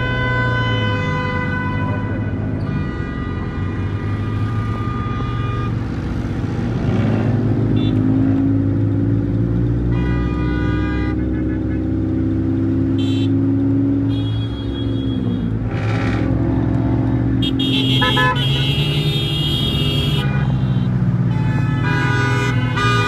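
Car engines running, one revving up about seven seconds in and holding until it drops back near the middle, while car horns honk repeatedly over them.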